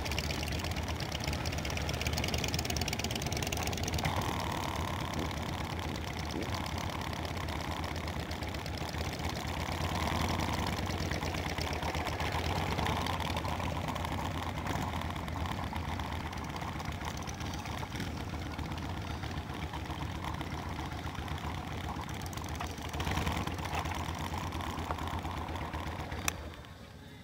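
Several cruiser motorcycles idling and pulling away one after another, a steady low engine note that falls away near the end.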